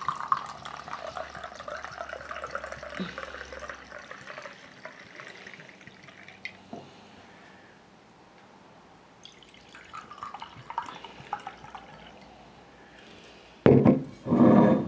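Glühwein (mulled red wine) poured from a bottle into a balloon wine glass, a steady splashing whose pitch rises as the glass fills, stopping about six seconds in. Near the end there are a couple of loud short noises.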